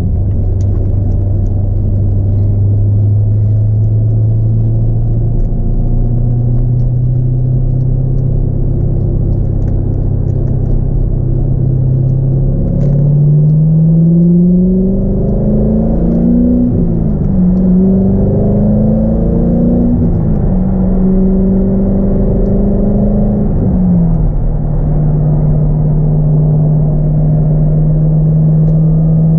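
2002 C5 Corvette's LS1 V8 with a cold air intake, heard from inside the cabin. It runs steadily at first, then about twelve seconds in the revs climb and drop back several times as the car accelerates. It then settles into a steady cruise for the last few seconds.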